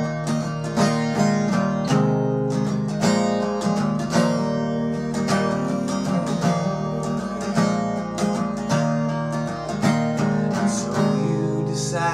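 Acoustic guitar strummed in a steady rhythm with the chords ringing, in an instrumental break of a folk song.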